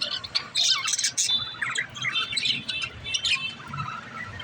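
Pet budgerigars chirping and chattering, many quick overlapping calls and warbles.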